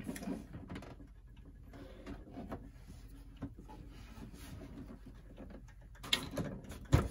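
Handling noise from a pendulum clock case being turned over and moved: scattered light knocks, clicks and rustling, with a sharper knock near the end.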